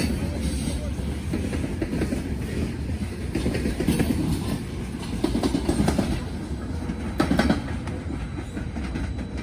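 Freight cars of a passing grain train rolling by, with a steady rumble and irregular clanking of wheels over the rail joints.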